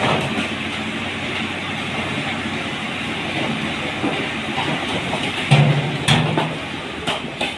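Bricks sliding and clattering off the raised bed of a tipper truck as it dumps its load, a continuous rattle with a few louder knocks about five to seven seconds in.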